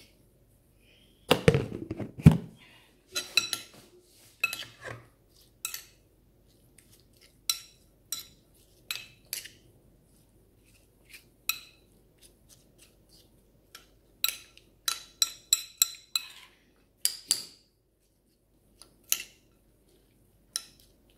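Metal spoon clinking and scraping against a ceramic bowl while tossing a wet kinilaw of raw anchovies, apple and onion. The clinks come irregularly. A few heavier knocks about a second and a half in are the loudest part.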